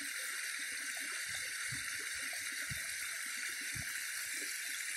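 Small shallow stream spilling over a low ledge in a mini waterfall: a steady rush of running water.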